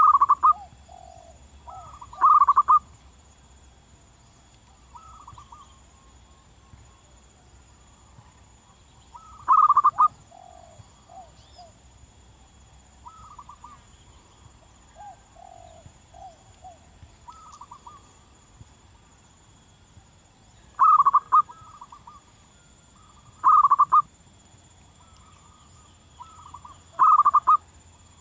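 Wild zebra doves (perkutut) calling: short, loud bursts of rapid cooing notes every few seconds. Fainter answering phrases come in between.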